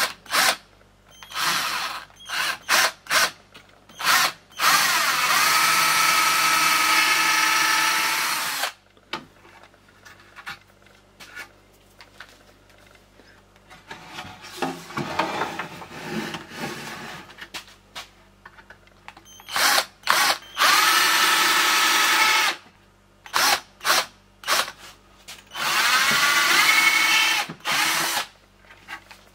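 Cordless drill/driver boring holes through wooden drawer posts with a twist bit: several quick trigger blips, then three longer runs of steady motor whine, the longest about four seconds, each rising in pitch as the motor spins up.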